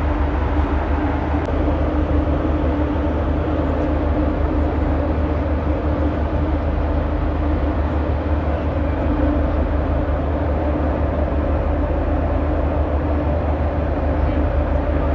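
Steady, loud mechanical drone of a ship's engines, with a deep rumble and a constant hum, with no change throughout.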